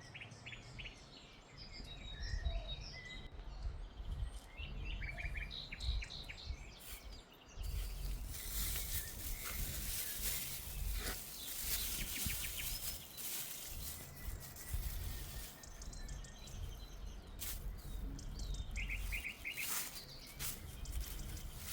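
Small birds chirping and trilling, with a low rumble like wind on the microphone underneath. About a third of the way in, a broad rustling hiss comes in and stays on, while the birdsong continues more faintly.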